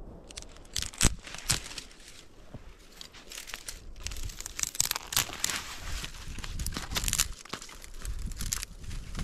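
Dry crinkling and crunching rustles, with a few sharp cracks about a second in and a denser run of crackling in the middle.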